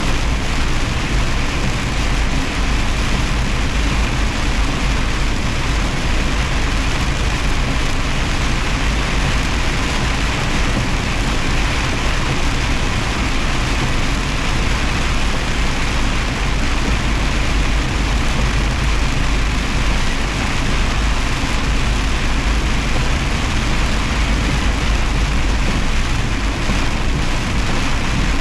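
Semi truck driving at a steady highway pace: a constant low engine rumble under an even hiss of road noise, without a break or a change.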